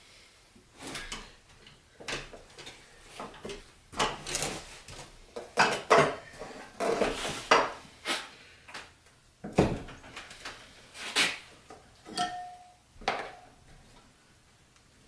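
Flathead screwdrivers clinking and scraping against a steel moped wheel rim as they lever the tire bead on, in irregular metallic clanks and knocks.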